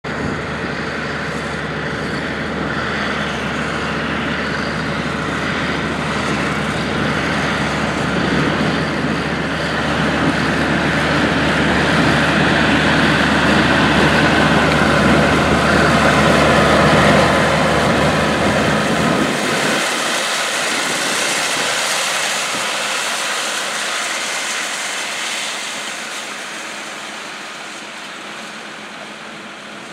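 Minneapolis-Moline G-1050 tractor's six-cylinder engine running steadily under load while pulling a hay rake, growing louder as it nears and passes close by. About two-thirds of the way in, the sound cuts to a more distant tractor, thinner and without the deep engine note, fading away.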